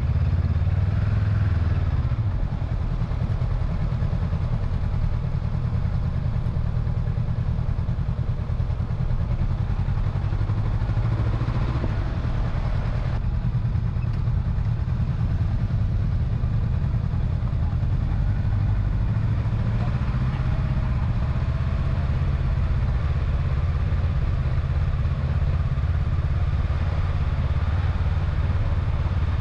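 Honda CB500X motorcycle's parallel-twin engine running steadily under way, a continuous low rumble.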